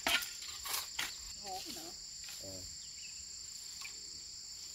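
Steady, high-pitched chorus of insects. In the first second there are a few short knocks and scrapes from hoes and shovels working the soil.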